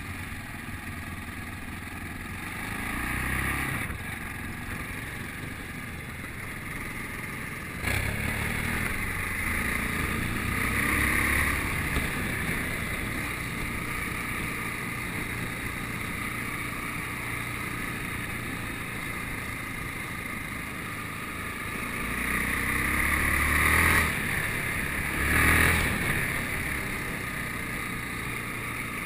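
Yamaha Ténéré adventure motorcycle engine running under way, heard from on board the bike. It picks up revs several times, near the start, in the middle and near the end, each time dropping off sharply as the throttle is closed.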